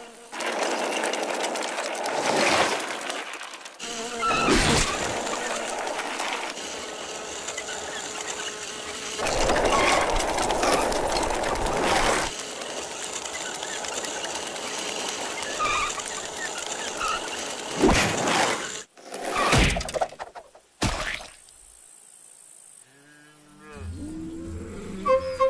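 Rushing noise of a small toy car speeding over asphalt, broken by several sharp knocks, with a cluster of them a few seconds before the end. Music with pitched notes comes in near the end.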